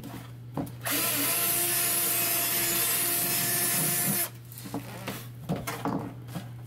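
Cordless drill running with a quarter-inch bit, boring a hole through the wall of a plastic diesel container for about three and a half seconds, then stopping. A few light clicks and knocks follow.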